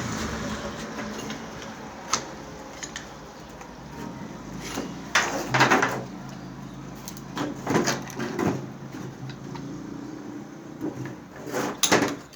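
Tool and metal-part handling on a washing machine's spin-dryer motor coupling as its bolt is loosened and the coupling worked free: a series of short clicks and scrapes, several close together about five to six seconds in, around eight seconds in, and near the end.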